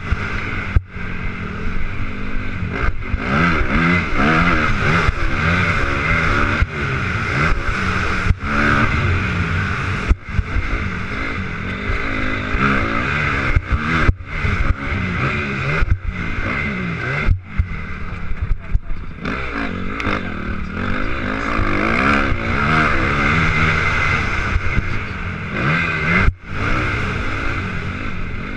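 Motocross bike engine revving up and down as it is ridden hard on a dirt track, heard through a helmet-mounted camera with wind noise. The engine note rises and falls with the throttle every second or two, dropping out for an instant now and then.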